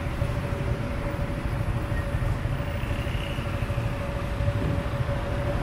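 Steady engine and road rumble of a motorbike riding in slow city traffic, with a thin steady whine running through it.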